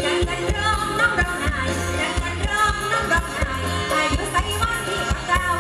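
Live mor lam band music through a PA system: a woman singing over a steady drum beat and heavy bass.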